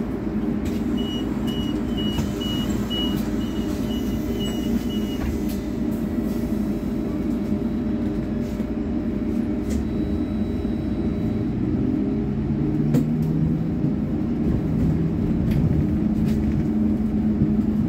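Cabin noise inside a moving city public-transport vehicle: a steady drive hum and road rumble, with the hum rising in pitch in the second half as it gathers speed. A high beeping repeats about twice a second for a few seconds near the start.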